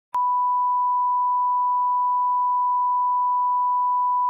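A single steady electronic beep tone at one unchanging pitch, cutting in abruptly just after a moment of dead silence.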